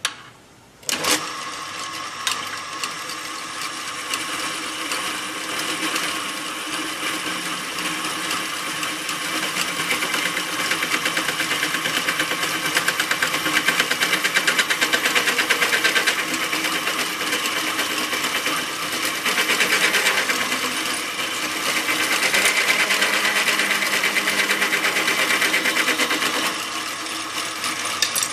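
Drill press starting up about a second in, then running with its bit drilling into a steel piece: a steady motor hum under a fast, rattling cutting chatter. The sound gets louder in two long spells as the bit is fed down into the metal.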